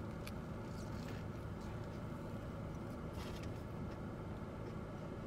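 Faint biting and chewing of a crispy fried chicken sandwich: a few soft crunches over a low steady background hum.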